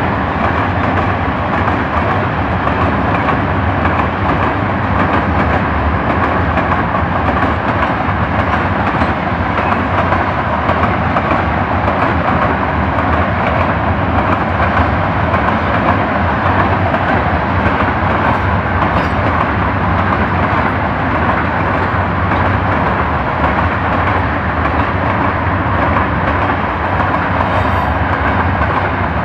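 Covered hopper wagons of a freight train rolling past, a steady, loud noise of steel wheels running on the rails.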